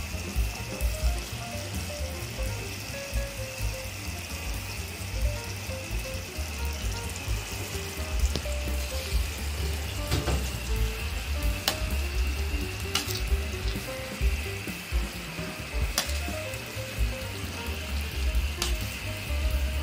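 Chicken livers sizzling in a bubbling soy and ketchup sauce in a pan. A spatula knocks against the pan a few times in the second half as they are stirred.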